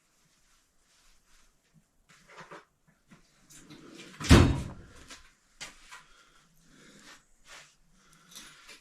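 Handling tools and a metal tool cart's drawers: scattered clicks and light rattles, with one loud clunk a little over four seconds in.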